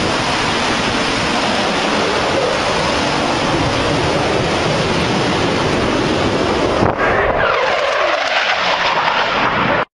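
Military jet flying low past: loud, steady jet engine noise, with a whine that falls in pitch about seven seconds in as the jet goes by. It cuts off suddenly near the end.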